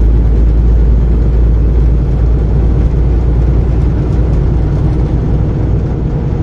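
Steady low rumble of a car being driven: engine and tyre-on-road noise.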